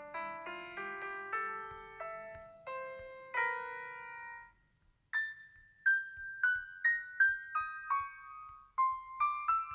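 Background piano music of single notes, each fading after it is struck. A short break about halfway through is followed by a higher, quicker run of notes.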